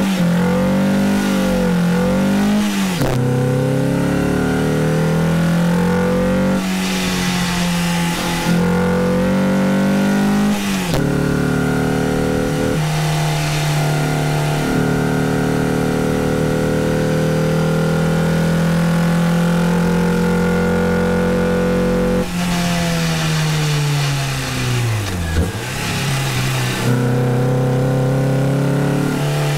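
Renault Clio 172's 2.0-litre four-cylinder engine heard from inside the cabin, revving hard under acceleration. The note breaks for gear changes about 3, 7 and 11 seconds in, and the revs drop sharply and climb again about 25 seconds in.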